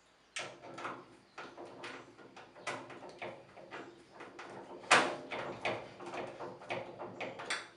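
Last screw of a caster wheel being tightened into the base of a rolling tool cabinet: a run of irregular clicks and knocks, a few a second, the sharpest about five seconds in.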